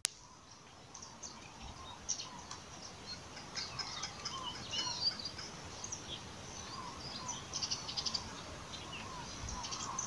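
Several birds chirping and calling over a quiet outdoor background: many short high chirps, some brief lower whistled notes, and a couple of rapid trills near the end.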